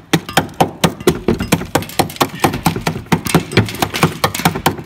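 Hammer rapidly and repeatedly striking the rusted steel underbody of a Mercedes Vito van, several sharp blows a second, knocking loose flaking rust scale to show how rotten the metal is.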